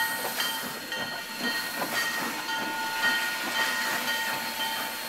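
Oil-fired narrow-gauge steam locomotive (White Pass & Yukon Route No. 73) venting steam with a steady hiss, scattered light ticks and a steady high whine that fades about halfway through.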